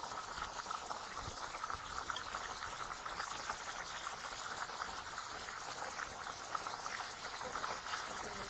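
Pot of food bubbling on a gas burner: a steady fine crackle of simmering.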